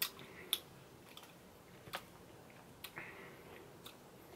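Faint eating sounds of ice cream cake being spooned from a glass bowl with a metal spoon and eaten: about five short, soft clicks and smacks spread over a few seconds.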